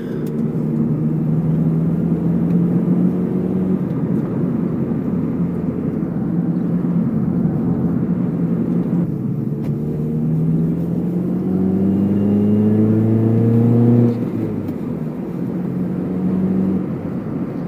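Four-cylinder engine of a manual Acura CSX heard from inside the car while driving, pulling up through the gears. The engine note climbs for the first few seconds and eases about four seconds in, then climbs again for several seconds and drops suddenly at a gear change about fourteen seconds in.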